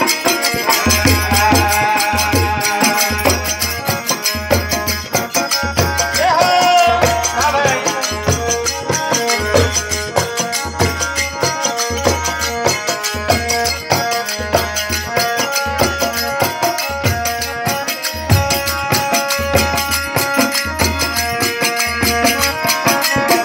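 Rajasthani bhajan music played instrumentally: a harmonium holding and moving between sustained notes over a low drum beat about once a second, with a continuous jingling of rattling percussion.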